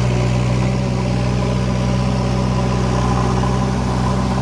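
An engine running steadily, giving a constant low hum.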